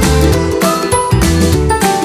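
Background music with a steady beat of about two hits a second under a melody.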